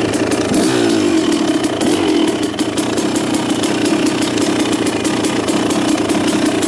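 Small off-road vehicle engine running, revving up about half a second in and then holding at a steady higher pitch, with a fast even ticking over it.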